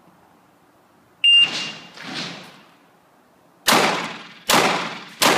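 Electronic shot timer beep about a second in, a short high tone that rings loudly off the walls. It is followed by three pistol shots in the last two seconds, about three-quarters of a second apart, each echoing briefly.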